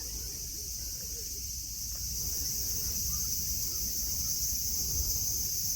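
Cicadas singing in a steady, continuous high-pitched chorus, growing a little louder about two seconds in, over a low rumble.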